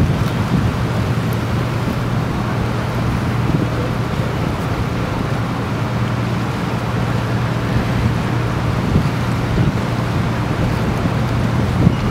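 Motorboat's engine droning steadily while under way, a constant low hum, with wind noise on the microphone and water rushing along the bow.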